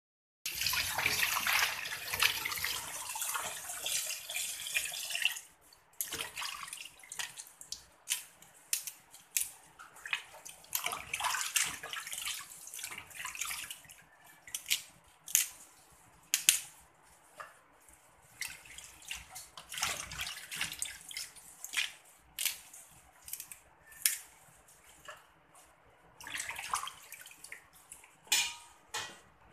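Water running from a tap into a plastic basin for about five seconds, then cut off suddenly. Hands then slosh and rub bok choy leaves in the water, with short irregular splashes and drips.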